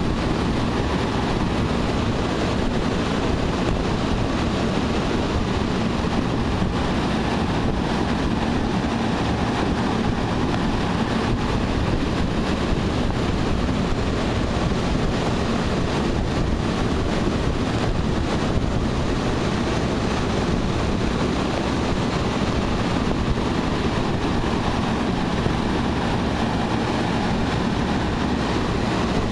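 AAON 7-ton packaged HVAC unit running steadily, its two three-bladed condenser fans turning and blowing air in a loud, even whoosh with a faint steady hum underneath.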